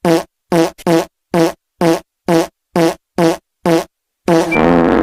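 Fart sound effect: a string of short, identical-sounding pitched farts, about two a second, then one longer drawn-out fart near the end.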